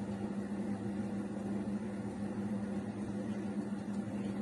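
Steady hum of a kitchen appliance running, with one constant low tone and a faint hiss above it.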